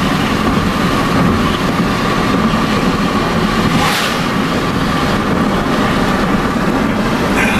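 Steady road noise inside a moving car at highway speed: engine and tyre drone with a low rumble, and a short hiss about four seconds in.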